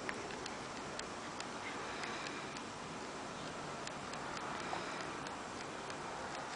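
Light ticks about twice a second over a steady background hiss.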